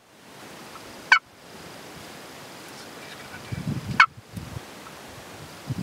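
Wild turkey tom gobbling twice, short loud bursts about a second in and again about four seconds in.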